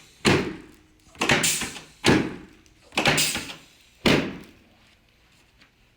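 Chiropractic drop table's pelvic section dropping under the adjuster's thrust: five sharp clunks about a second apart, each fading quickly, as drop-technique adjustments of the pelvis.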